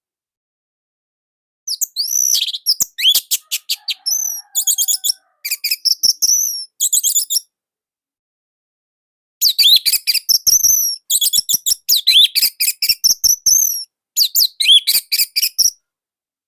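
Orange-headed thrush (anis merah) singing: two long phrases of rapid, high, tightly packed notes and sweeps, the first starting about two seconds in and the second after a two-second pause.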